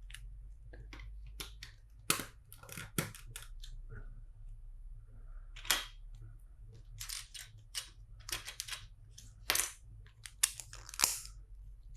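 Plastic LEGO bricks being handled and snapped together: a series of sharp, irregular clicks, some in quick clusters.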